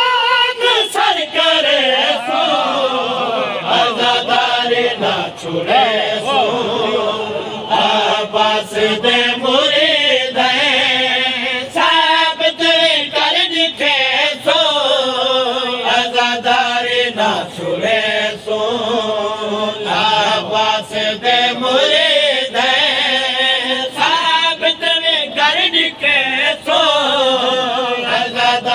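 Men chanting a mourning lament (noha) loudly together, with a lead voice carrying long phrases that rise and fall in pitch. Frequent short sharp knocks run through the singing.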